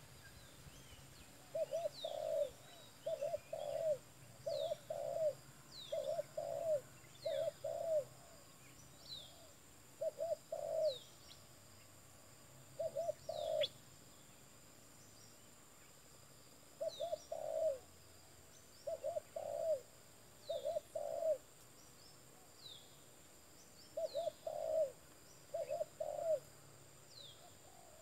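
Spotted dove (tekukur) cooing in short phrases of two or three notes, repeated every second or so with longer pauses between runs. A thin, high falling chirp repeats faintly in the background.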